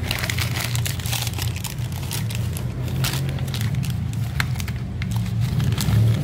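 Plastic dog-treat packets crinkling and rustling as they are handled, in irregular crackles, over a steady low hum.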